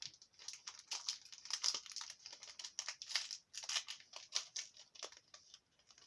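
Pokémon trading-card booster pack wrappers crinkling irregularly as they are handled and torn open.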